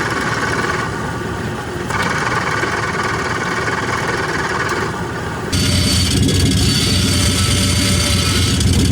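Car engine running with the noise of a damaged clutch pressure plate, whose diaphragm-spring fingers have cracked or broken from friction or fatigue. About five and a half seconds in the sound changes abruptly to a louder, deeper running.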